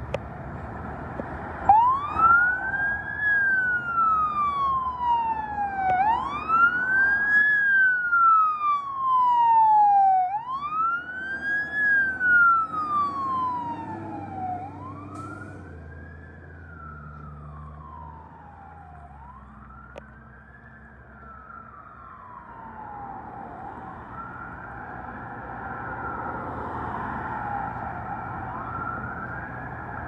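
Fire engine's electronic wail siren sweeping up fast and down slowly, about four seconds a cycle, starting about two seconds in and fading in the second half as the truck pulls away. Loud air horn blasts sound over the siren through the first half, with the truck's engine rumbling underneath.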